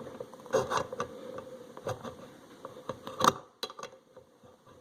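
Wenger Swiss Army knife can-opener blade working through a tin can lid: irregular metal clicks and scrapes as it levers and cuts, the loudest about three seconds in, then quieter.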